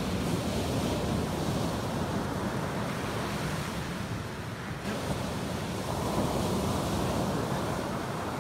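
Surf breaking and washing up a sandy beach, with wind on the microphone. The wash eases about five seconds in and builds again as the next wave comes in.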